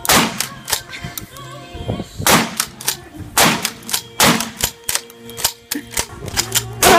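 Celebratory gunshots from a long gun, about five loud, sharp shots spaced roughly a second or two apart, each with a short echoing tail.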